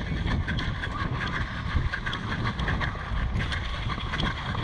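Wind rumbling on the microphone, with many scattered faint clicks and ticks over it.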